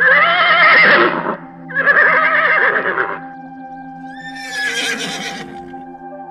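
Horse whinnying: two long, loud calls back to back, then a higher, quieter one about four seconds in, over soft sustained ambient music.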